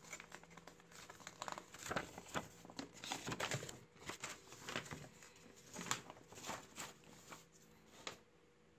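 Paper rustling and crinkling in irregular bursts with light clicks as a sheet of warranty paper is handled, stopping shortly before the end.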